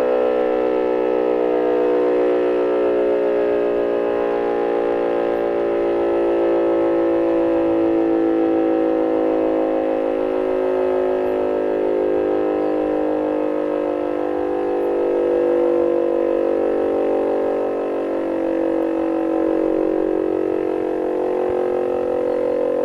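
Siemens & Halske electro-mechanical air-raid siren from the 1930s sounding a loud, sustained tone. Several close pitches beat against each other, so the sound wavers slowly while the pitch stays nearly steady.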